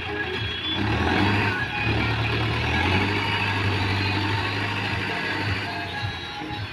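Mahindra Arjun Novo tractor's diesel engine running under load as its front loader raises a full bucket of straw, growing louder about a second in and then running steadily.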